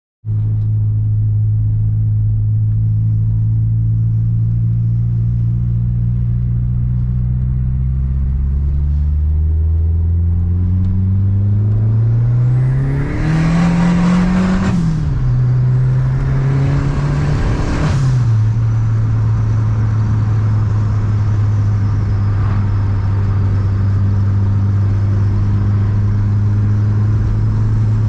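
1993 VW Santana GLSi's turbocharged 2.1 AP four-cylinder, heard from inside the cabin, accelerating through the gears. The engine note climbs twice, each time with a loud rushing hiss and a rising whistle from the turbo that cut off as the revs drop at the shift. It then settles into a steady cruise.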